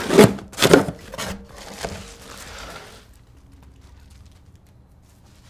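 Boxes and packaging being handled: four sharp knocks in the first two seconds, then a soft rustle that fades out about three seconds in.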